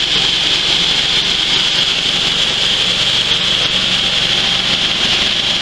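Engine-driven dry coffee huller running steadily while hulling dried coffee, a constant loud machine noise with a strong high hiss.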